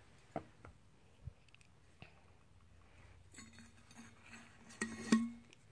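Faint handling sounds of a stainless steel water bottle: a few light taps and clinks as it is turned in the hands, then the rustle and scrape of a paper card being drawn out of its mouth, loudest about five seconds in, with a low steady hum under the last two seconds.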